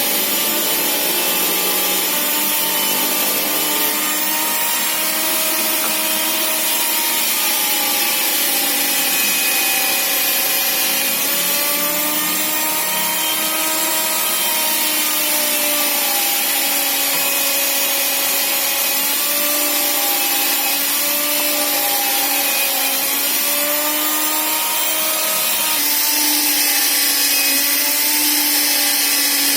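Electric sliding circular saw motor running continuously through wood, its pitch dipping and rising slightly as the load changes.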